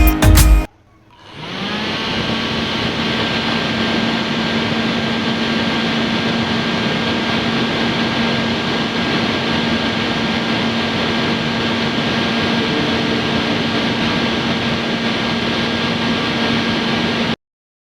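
A miniature portable air conditioner's fan spinning up about a second in, then running as a steady whir with a constant hum. It cuts off suddenly near the end.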